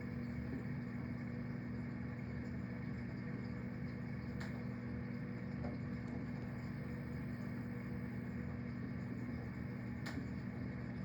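Steady low hum and water noise of a reef aquarium's running pumps, with two faint clicks, one about four seconds in and one near the end.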